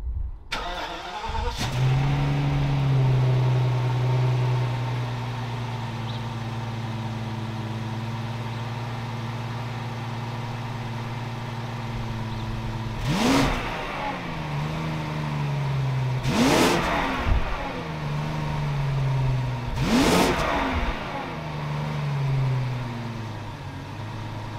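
Straight-piped 6.0-litre V12 of a BMW 760Li starting up and idling. The idle sits higher at first, then settles lower. It is revved three times, a few seconds apart, each rev rising and falling back to idle.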